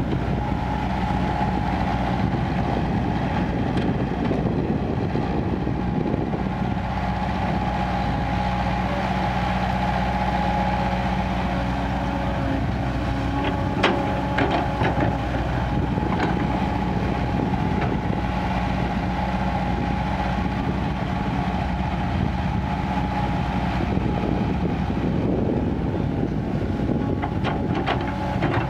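Kobelco crawler excavator's diesel engine running steadily under working load. Sharp knocks about halfway through and again near the end as bucketloads of soil drop into the dump truck's metal bed.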